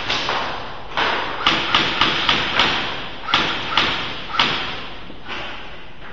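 Airsoft guns firing single shots, about ten sharp cracks at an uneven pace, each trailing off in a short echo.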